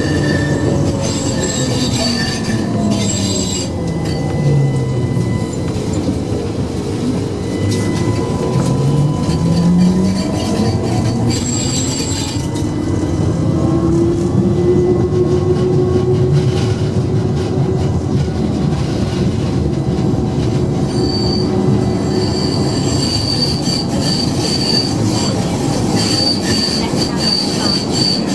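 Budapest Ganz tram running on its rails, heard from inside: a steady rolling rumble with a humming tone that slides down and back up in pitch, and a high wheel squeal in the last several seconds as it takes a curve.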